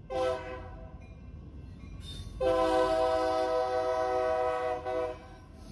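Union Pacific diesel locomotive's multi-chime air horn sounding for a grade crossing: a short blast at the start, then a long blast of nearly three seconds beginning about two and a half seconds in.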